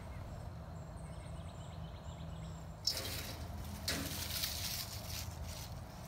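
Footsteps crunching through dry pine straw and fallen leaves, about one step a second, starting about halfway through.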